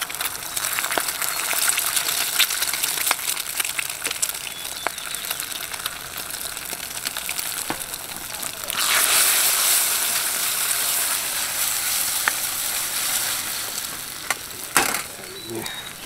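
Eggs frying in hot oil in a wok, a steady sizzle with small clicks; about nine seconds in the sizzle gets louder. Near the end there is a sharp knock as a ladle works the eggs in the wok.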